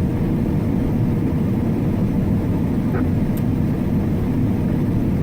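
Combine harvester running steadily during corn harvest, a loud even low drone.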